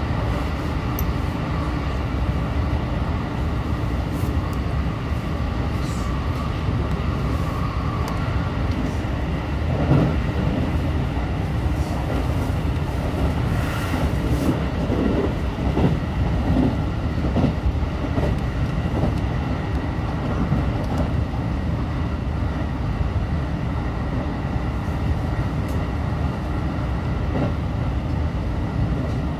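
Running noise inside a JR Central 313 series electric train: a steady low rumble of wheels on rail. A faint whine sits in the first eight seconds or so, and a run of irregular knocks comes between about ten and eighteen seconds in.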